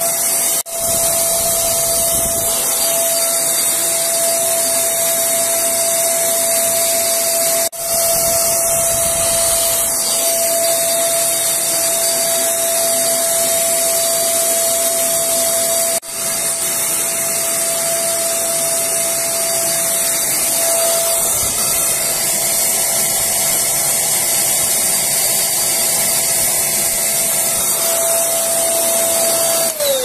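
Canister vacuum cleaner running steadily: a loud airflow rush with a steady high motor whine, broken by three very short dips.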